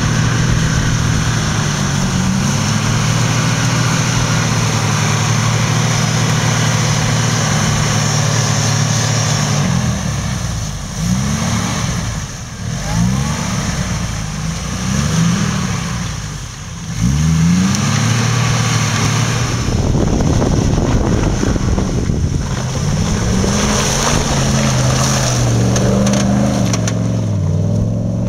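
Off-road 4x4 engine under load, running at steady revs, then revved up and down in several quick bursts about halfway through, then held steady again.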